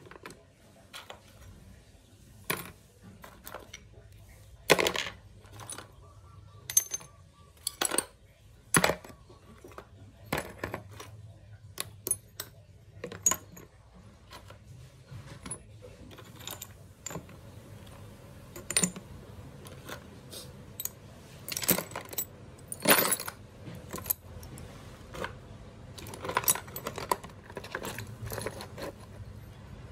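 Small metal parts and tools clinking and knocking against one another and a hard surface, in irregular sharp clicks and taps, as in hands-on engine work.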